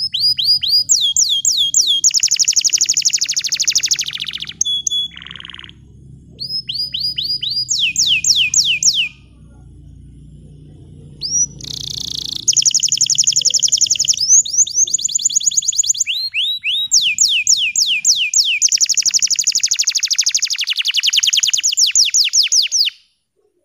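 Green canary singing: loud phrases of fast rolling trills, each made of rapidly repeated sweeping notes, with short breaks between phrases. The song cuts off suddenly near the end.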